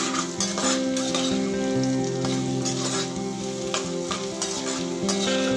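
Chopped onions and green chillies sizzling in hot oil in a frying pan while a metal spoon stirs them, scraping and clicking against the pan, as the onions soften. Soft background music with held notes plays underneath.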